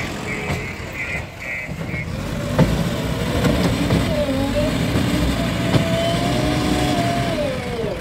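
JCB 3DX backhoe loader's diesel engine running, with its reversing alarm beeping steadily for the first couple of seconds before it stops. The engine then works harder as the machine drives, its pitch rising and falling. Two sharp knocks come about two and a half seconds in and near six seconds.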